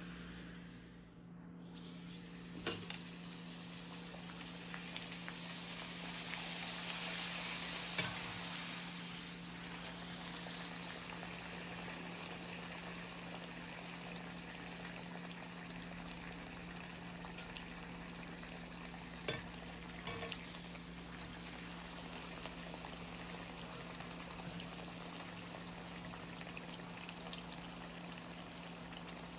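Food sizzling steadily in a hot frying pan, with a few sharp clicks of a utensil against the pan. A steady low hum runs underneath.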